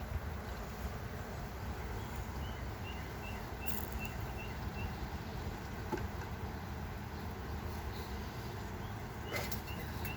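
Honey bee colony around an opened hive humming steadily, stirred up and agitated, a hum that sounds like a swarm. A quick run of short, high chirps comes through twice.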